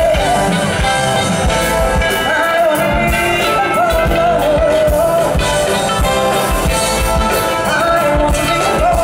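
Live band music: a woman singing a wavering melody over acoustic guitar, bass and drums, with a steady beat.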